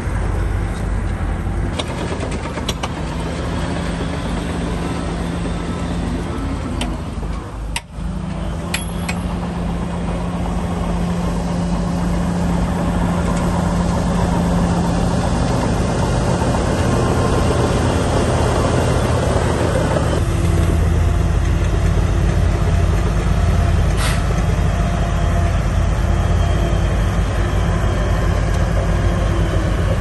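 Diesel engines of heavy earthmoving machinery running steadily, with a few sharp knocks. About eight seconds in the sound drops out briefly, and from about twenty seconds a deeper, louder engine rumble takes over.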